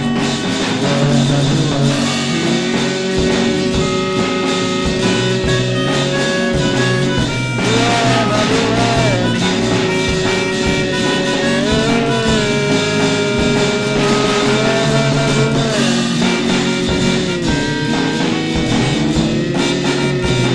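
Music: a full instrumental texture under a melody of long held notes that slide up and down between pitches.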